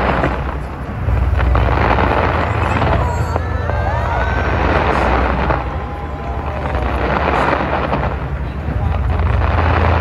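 Tower-launched fireworks display going off continuously, a deep rumble under dense crackling from the bursting shells, swelling and easing in waves.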